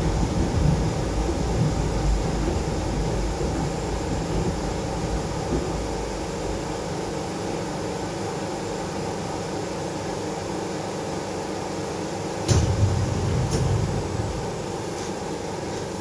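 Inside a Moscow monorail car slowing to a stop at a station: the low running rumble dies away over the first several seconds, leaving a steady hum. About twelve and a half seconds in comes a sudden clunk with a brief low rumble, and a smaller click a second later.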